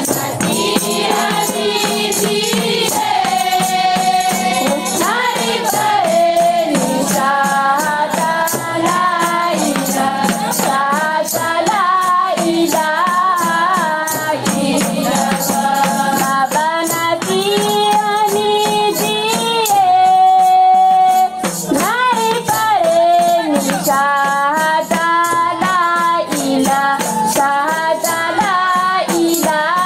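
Women's choir singing a debaa song together, with a steady beat of hand percussion under the voices.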